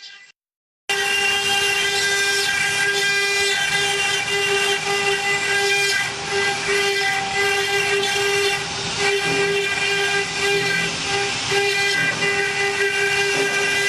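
Stone-carving CNC machine's spindle running steadily while cutting stone: a high, steady whine with several tones over a hiss. It starts abruptly about a second in.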